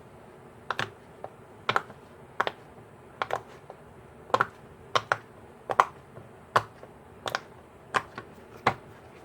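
Bubbles of a blueberry waffle poppet push-pop fidget toy being pressed one after another, each giving a sharp pop-click, about a dozen at a steady pace of a little more than one a second.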